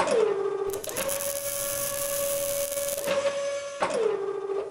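Machine sound effects: a steady motor whine that drops in pitch at the start and again near the end, recovering each time. A loud grinding hiss runs over the middle couple of seconds.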